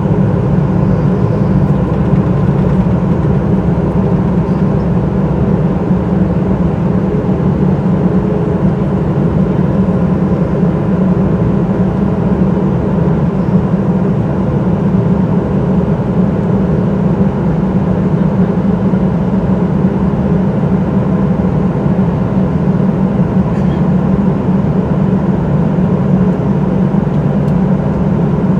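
Steady cabin noise of a Boeing 737-800 under way, from its jet engines and airflow, with a constant low hum and no change in pitch.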